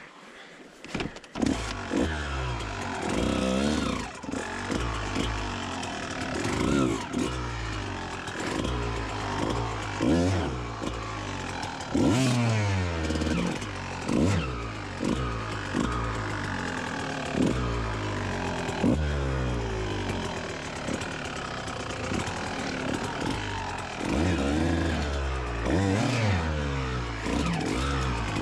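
Kawasaki KX125 single-cylinder two-stroke dirt bike engine starting up about a second in, then revved up and down over and over in short throttle blips as the bike clambers over rocks.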